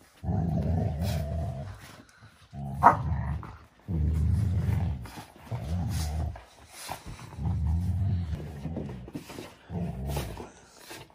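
Two dogs growling in play as they tug a plush toy between them, in a string of low growls each about a second long, with one brief sharp yip about three seconds in.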